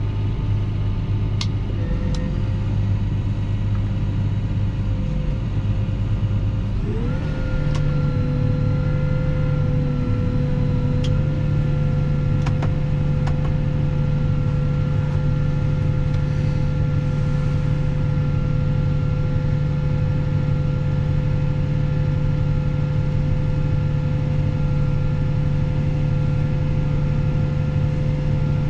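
Fendt 716 Vario tractor engine running steadily under load. About a quarter of the way in, its pitch rises quickly to a higher engine speed and then holds steady. There are a few faint clicks in the first seconds.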